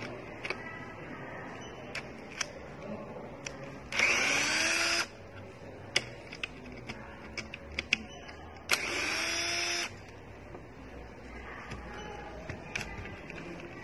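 Cordless electric screwdriver running in two bursts of about a second each, the motor's whine rising in pitch as it spins up, turning screws on the electric scooter's folding stem. Light clicks and taps of screws and parts being handled come between the bursts.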